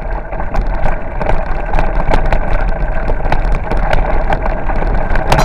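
Wind buffeting the microphone on a moving bicycle, with a constant clatter of small knocks and rattles as the bike rolls over a rough dirt road.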